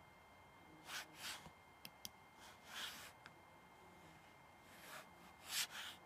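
Quiet, short breathy hisses of air from a person with a tracheostomy, coming in small groups about a second in, near three seconds and near the end, with a few faint clicks between them; the last group is the loudest.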